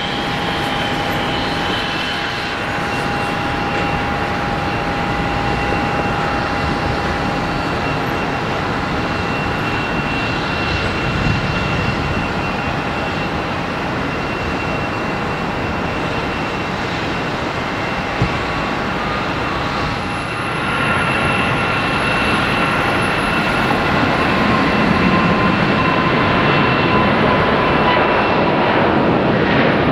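Airbus A380-861 airliner climbing out under takeoff thrust, its four Engine Alliance GP7200 turbofans giving steady jet noise with thin whining tones. At about 20 seconds the sound grows louder and its tones change as a second, nearer A380 climbing out takes over.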